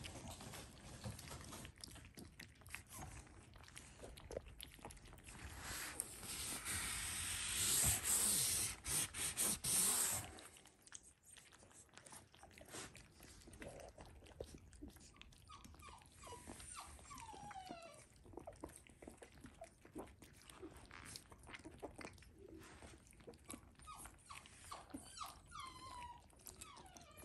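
Shiba Inu puppies eating soaked kibble from a stainless steel bowl: many small wet clicks of lapping and chewing, with a few short, high, falling whimpers in the second half. A loud rushing noise fills a few seconds near the middle.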